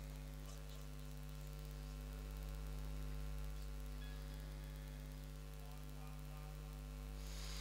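Steady electrical mains hum in the microphone and sound system: a low buzz with a ladder of overtones. A soft hiss rises near the end.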